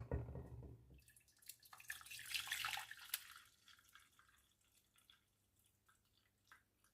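Faint liquid sounds: a brief low rumble at the start, a short splashing passage, then scattered drips trailing off.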